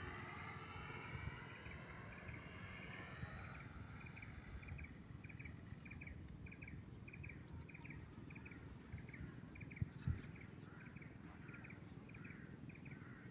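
Faint whine of the Lazy Bee RC plane's electric motor and propeller, sliding up and down in pitch as it passes and fading out about five seconds in. After that an insect chirps steadily, about two chirps a second, with a couple of soft thumps about ten seconds in.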